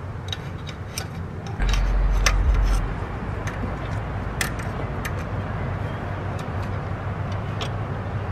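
Scattered small metallic clicks and ticks of needle-nose pliers working a spring hose clamp on a vacuum line in the engine bay, over a steady low hum. A heavy low rumble comes in about a second and a half in and lasts about a second.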